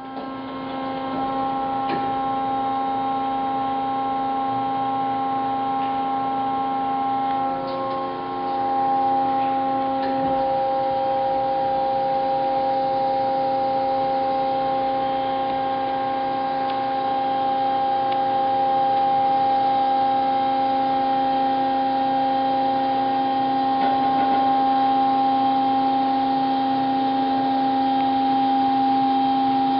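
Hyd-Mech V-18 Series 2 vertical bandsaw running with a steady, several-toned machine hum. It comes up over the first second or two, and its tone shifts slightly around eight to ten seconds in.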